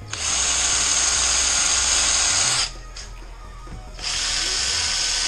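Cordless drill boring into a steel exhaust downpipe held in a vise. It runs for about two and a half seconds, stops, and starts drilling again about four seconds in.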